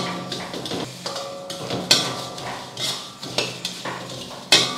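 Long metal spatula scraping and stirring whole coriander, cumin and pepper seeds roasting in oil in a stainless-steel kadai. The seeds rattle across the pan, with a few sharp clanks of metal on metal.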